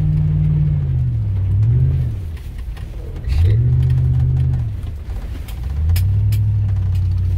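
Suburban's engine heard from inside the cab, revving up and easing off in repeated surges as the 4x4 drives through mud, with scattered ticks and knocks.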